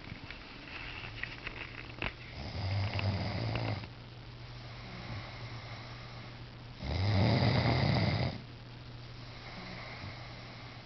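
A man snoring loudly: two long snores, each about a second and a half, about four seconds apart, with quieter stretches between. A short click sounds about two seconds in.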